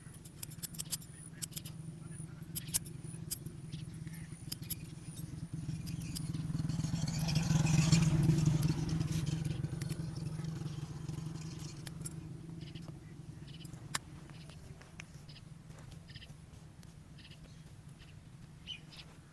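Old ZAZA electric hair clipper humming steadily, swelling louder for a few seconds near the middle as it cuts close through hair. Sharp clicks come quickly in the first few seconds and only now and then after that.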